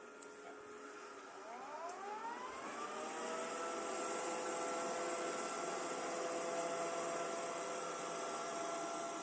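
Viomi vacuum cleaner's motor spinning up: a whine of several pitches rises over about two seconds, then holds steady over a hiss. This is the noise its owner presents as a bad, abnormal sound.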